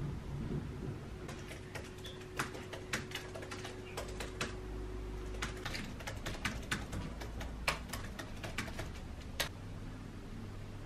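Typing on a computer keyboard: irregular runs of clicking keystrokes that stop shortly before the end.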